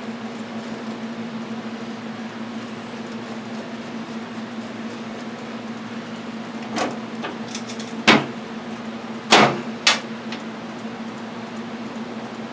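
Hand tools knocking and clinking against the mower as it is worked on: four short sharp knocks about seven to ten seconds in, over a steady low hum.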